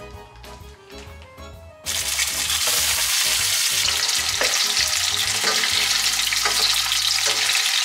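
Soft background music, then about two seconds in a loud sizzle starts suddenly: pieces of boiled tuna belly frying in hot oil in a pan.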